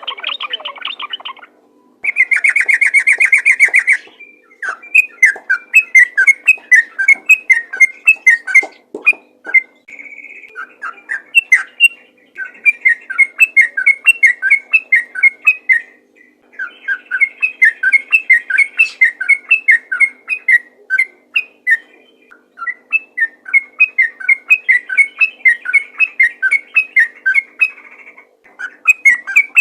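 Sooty-headed bulbul singing in long runs of rapid, bubbling short notes, phrase after phrase with brief pauses between them. There is a harsher buzzy stretch a couple of seconds in.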